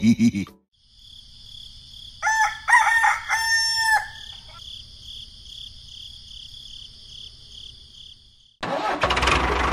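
Rooster crowing once, a rising-and-falling call about two seconds in, over a steady high-pitched background. Near the end an engine starts running loudly and keeps going.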